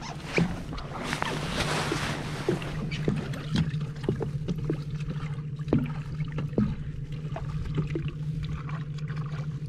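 Boat engine idling with a steady low hum, while water sloshes and splashes at the hull as a small catshark is held by the tail in the water, with a louder splashy stretch about a second in and small scattered splashes after.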